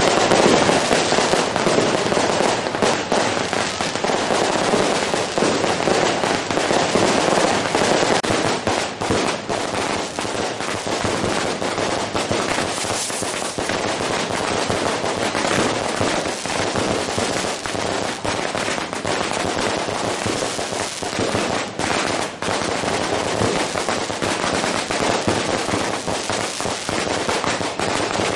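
Long strings of firecrackers going off in a dense, unbroken crackle of rapid bangs, steady in loudness throughout.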